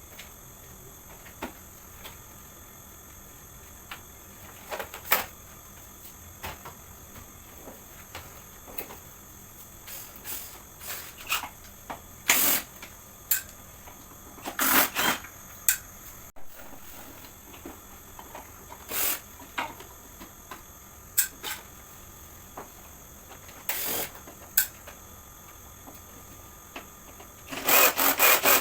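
Scattered clicks, knocks and clatters of plastic and metal parts being handled while a portable air conditioner is taken apart, with a quick run of knocks near the end, over a steady faint high hiss.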